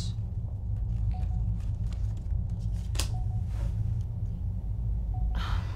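Steady low rumbling hum of a spaceship cabin's background drone, with a single sharp click about three seconds in and a short rustle near the end.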